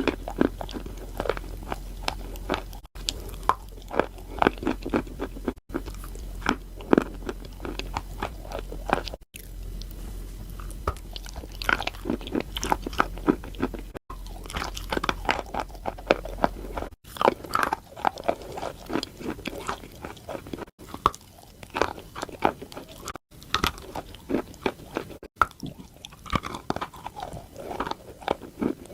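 Close-up crunching and chewing of chalk: irregular crisp bites and grinding chews. The sound drops out for an instant several times where takes are spliced together.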